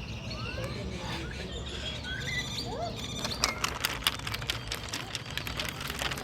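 Birds chirping and whistling in short rising and falling calls, with a quick run of sharp clicks in the middle, over a steady low background hum.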